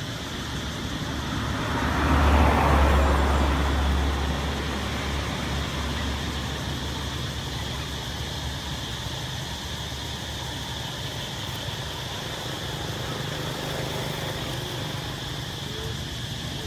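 A motor vehicle passing by, loudest about two to three seconds in, then fading into a steady low hum of traffic.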